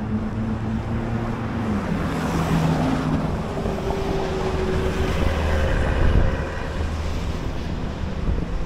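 Wind buffeting the microphone over the sound of car traffic on a city street, with an engine hum that drops in pitch about two seconds in.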